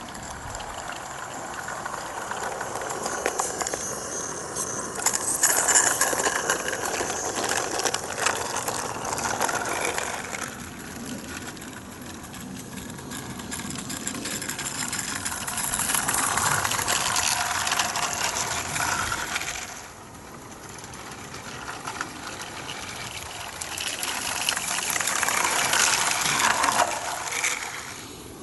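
Garden-railway model train running on metal track, its wheels clicking and rattling over the rail joints. It gets louder and fades away three times as it comes past and goes.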